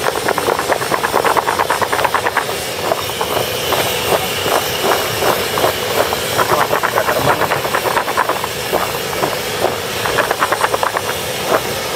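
Cut raw potato strips rattling and clattering against a plastic basin as it is shaken and tossed in bursts, a few seconds each with short pauses between, over a steady hiss.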